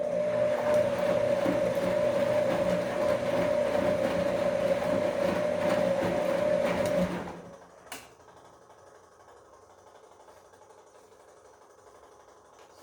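Bosch Komfort-Klasse washing machine running mid-cycle with a steady hum, which stops about seven seconds in, followed by a single click.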